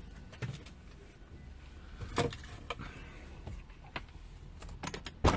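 Handling noise: scattered clicks and knocks as the phone camera is moved about inside a car, over a low steady hum, with a louder cluster of knocks near the end.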